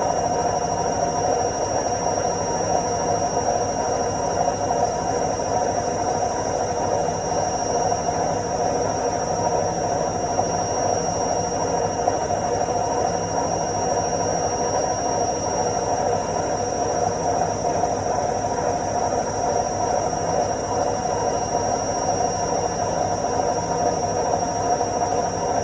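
Washing machine on its spin cycle: a steady, even whirring drone with a low hum and a faint high whine, holding the same speed throughout.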